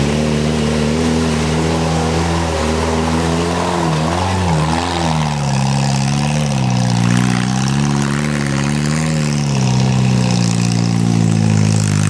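Off-road 4x4's engine labouring under load as it climbs a steep, rutted slope, its revs dipping and rising again several times as the driver works the throttle.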